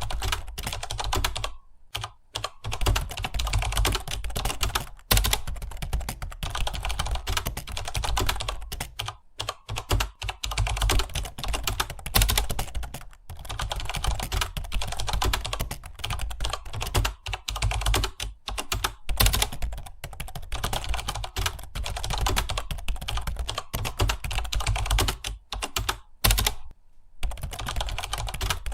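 Fast, continuous typing on a computer keyboard, with a few brief pauses between bursts of keystrokes, over a steady low hum.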